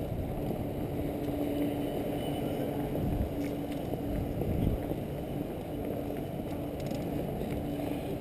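Wind and rolling noise from riding a bicycle, picked up on a GoPro camera, with a faint steady hum that breaks off now and then.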